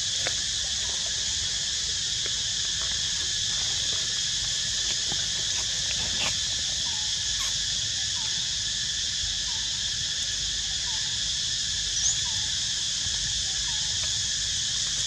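Steady insect chorus, a continuous high-pitched buzzing drone, with a row of faint short downward chirps in the middle and a brief higher chirp near the end.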